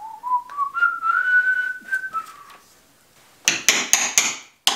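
A person whistling a few notes that step upward in pitch and then dip, for about two and a half seconds. Near the end come a quick run of sharp hammer taps on the knife being fitted with its handle.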